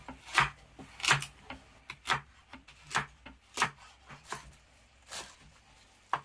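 Chef's knife slicing through green onion stalks and knocking on a bamboo cutting board: about ten crisp chops, unevenly spaced at roughly one every half second to second.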